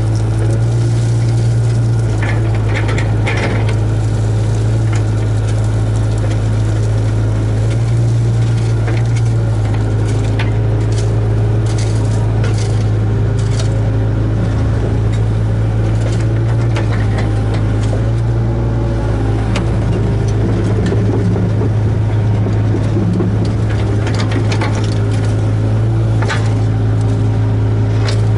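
Hitachi ZAXIS 75UR hydraulic excavator heard from inside its operator's cab: the diesel engine runs with a steady low drone while higher tones shift in pitch as the machine works. Short knocks and scrapes come now and then, a few of them a little after ten seconds and again near the end.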